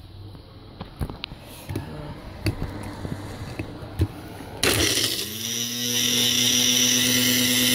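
A few light clicks and knocks, then about four and a half seconds in a Magic Bullet blender motor starts suddenly, rises quickly in pitch and runs on with a steady whine, blending carrots, garlic, frozen strawberries and banana.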